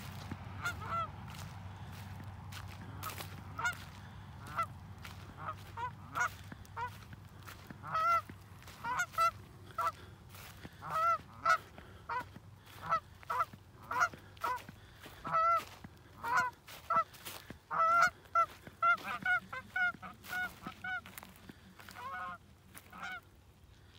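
A pair of Canada geese honking, single calls at first, then coming faster and closer together, several a second at the busiest. The calls thin out near the end as the pair takes flight: the honking build-up that comes before a take-off.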